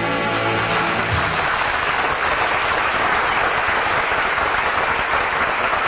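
Studio audience applauding, a dense steady clapping that takes over as the last notes of a brass swing band number die away about a second in.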